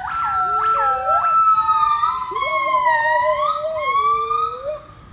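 Zoo monkeys calling: two or more voices overlap in long, held, whistle-like notes that slide up and down in pitch, with quick downward swoops in the first second or so.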